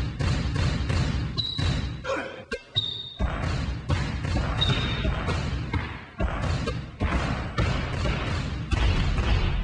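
Basketballs dribbled on a hard floor in a quick, rhythmic beat, with short sneaker squeaks a few times, mixed over music.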